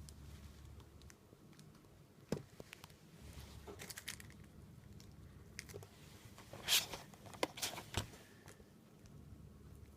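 Scattered light clicks, knocks and rustles of objects being handled, loudest in a cluster a little past the middle; no chime tone sounds.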